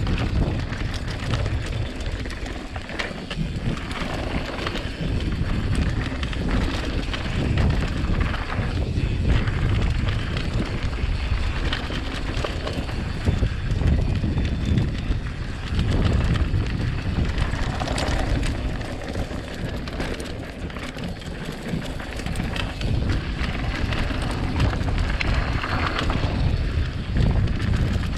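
Mountain bike riding down a dirt trail: tyres rolling over the ground and the bike rattling over bumps, with wind rushing over the microphone. The noise rises and falls with the terrain.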